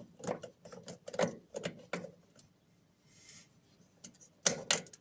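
Small metal clicks and clinks of a tool and bolt working the carbon brush holder off a washing machine's drum motor: a quick run of clicks, a short lull, then two sharp clicks near the end as the brush comes free.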